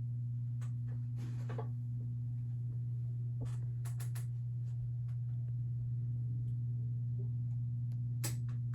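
Emerson K55 ceiling fan motor running, a steady low hum, with a few faint clicks and rustles scattered through.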